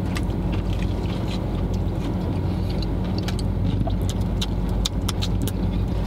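Steady low hum of a car running while parked, heard inside the cabin, with scattered small clicks and smacks of chewing and handling fried chicken.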